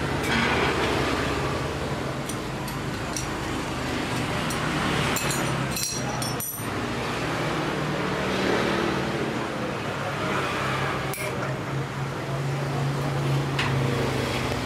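Steady road traffic noise, with a low engine hum swelling near the end, and a few sharp clicks in the middle.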